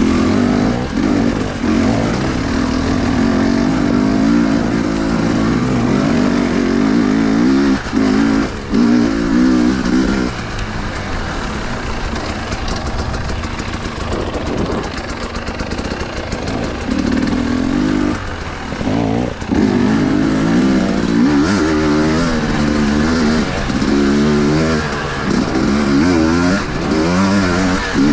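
Husqvarna TE 250i two-stroke dirt bike engine being ridden, revving up and down continually as the throttle is worked, with a few brief drops when the throttle is shut.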